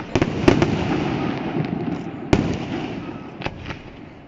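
Aerial fireworks going off: a quick cluster of bangs about half a second in and a single sharp crack a little past two seconds. Between them is a rolling rumble, which thins out near the end.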